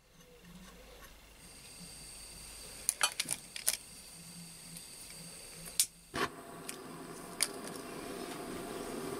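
Gas blowtorch: butane hissing from the opened valve, several quick clicks of a disposable lighter being struck about three seconds in and again just before six seconds, then the torch catches and burns with a steady rushing flame.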